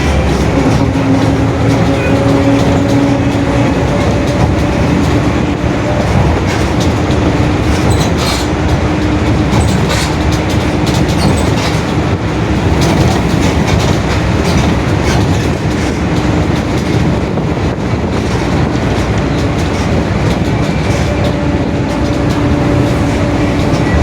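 Rear differential of a Mercedes-Benz OF-1721 city bus whining very loudly in a steady tone under way. The tone weakens in the middle and comes back stronger near the end, over heavy road rumble and rattling.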